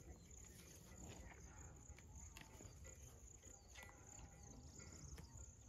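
Near silence: faint outdoor ambience, with a low wind rumble on the microphone and a faint, steady high insect trill, broken by a few soft clicks.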